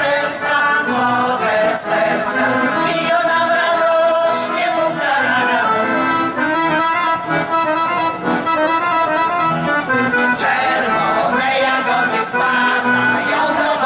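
Polish folk music: an accordion plays a lively melody while a group of women sing in folk style.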